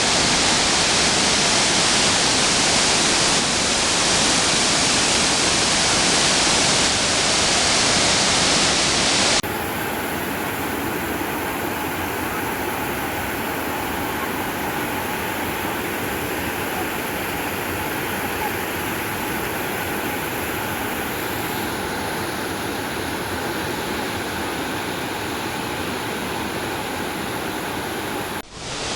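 Steady rush of falling water from a waterfall, Anna Ruby Falls' twin falls. About nine seconds in it changes abruptly to a quieter, thinner rush.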